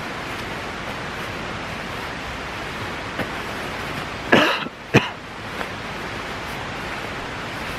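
Steady hiss with the rustle of a synthetic sleeping bag being handled. Two short, sharp sounds come close together a little past halfway and are the loudest thing heard.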